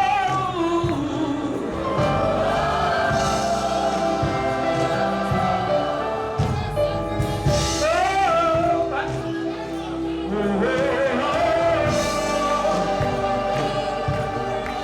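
Live gospel worship singing with accompaniment: voices hold long, wordless 'oh' vowels, swooping upward into a few of the notes.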